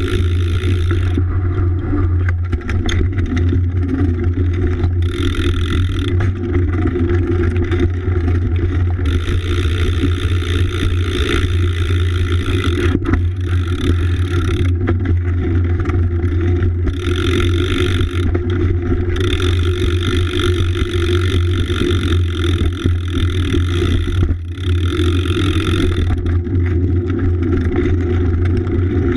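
A BMX riding on wet pavement, heard through a frame-mounted GoPro Hero 3 in its housing: a steady low rumble of wind and rolling noise on the microphone, with a higher hiss that comes and goes every few seconds.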